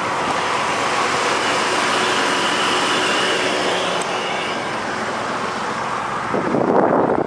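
Steady rush of motor-vehicle noise, with wind buffeting the microphone near the end.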